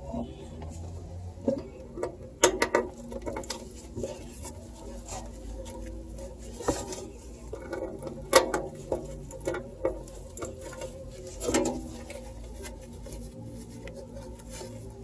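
Irregular small clicks, taps and rustles of hands handling a computer case's parts and cables during assembly, with a handful of sharper knocks.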